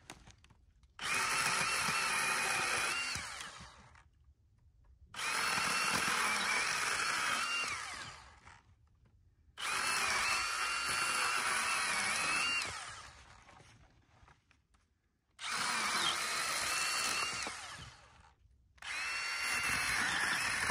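Small handheld electric chainsaw cutting through fallen branches in five bursts of about three seconds each, a steady high whine under load that sags in pitch and winds down between cuts.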